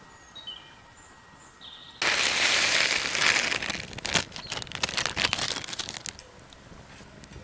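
A few short bird chirps, then a plastic zip-lock bag crinkling loudly as it is handled. The crinkling starts suddenly about two seconds in and runs for about four seconds as dense, sharp crackles.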